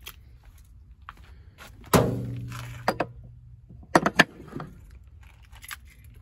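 One heavy clunk about two seconds in, ringing briefly as it dies away, then three sharp clicks about two seconds later. This is the EV charging connector being hung up and seated in the wall charger's holster.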